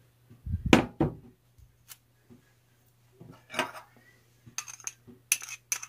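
Glass and ceramic dishes being handled on a table: two dull knocks just under a second in as something is set down, then a run of light clinks and taps in the second half.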